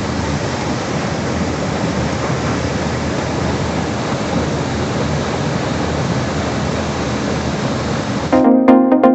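Steady rushing noise with no distinct tones, like water pouring. It cuts off about eight seconds in, when electronic music with a steady beat starts abruptly.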